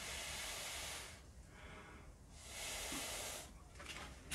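Two long breaths blown through a straw onto wet poured acrylic paint to push it out, each a breathy hiss about a second long, the second coming about two and a half seconds in.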